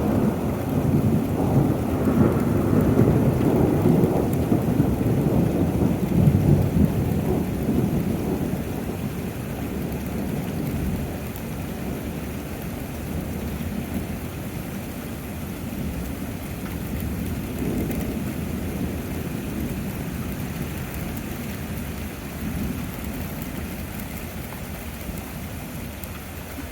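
Thunder rumbling long and low over steady rain, loudest in the first several seconds and slowly dying away, with a smaller swell of rumble about two-thirds of the way through.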